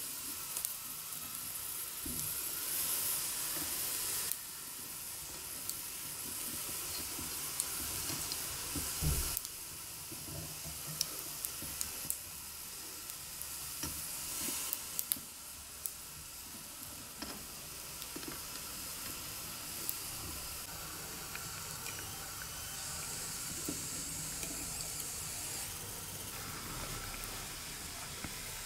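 Chestnuts roasting on a wire grill over hibachi charcoal: a steady hissing sizzle with scattered sharp pops and crackles, and a dull knock about nine seconds in.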